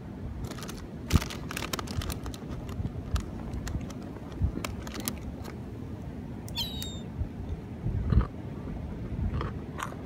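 Gulls calling with short mewing cries, one high call standing out about two-thirds of the way through, over a steady low rumble with scattered sharp clicks.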